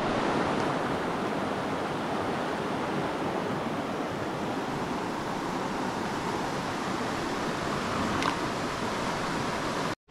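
Steady rush of a fast-flowing mountain river.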